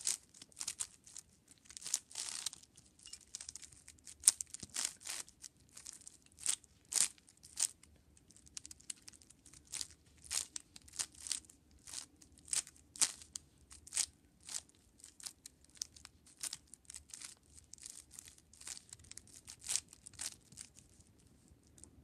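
A 5x5 Rubik's cube being scrambled by hand: quick layer turns, each a short plastic clack or rasp, in an uneven run of about two a second.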